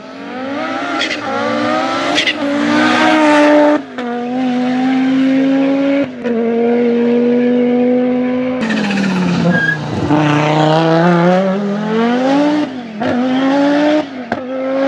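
Audi Sport Quattro S1 rally car's turbocharged five-cylinder engine accelerating hard through the gears, its pitch climbing and dropping back at each shift. Sharp exhaust bangs and pops come on the shifts and lift-offs, most of them near the end.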